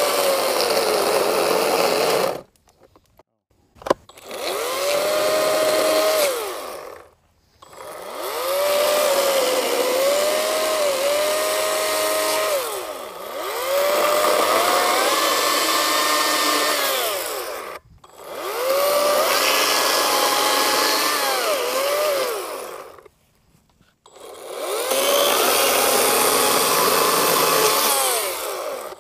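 Harbor Freight Atlas 40-volt brushless battery chainsaw making a series of short cuts through an old wooden pallet. Each time, the electric motor whines up to speed and its pitch sags as the chain bites into the boards. It stops dead when the trigger is let off, about six times over.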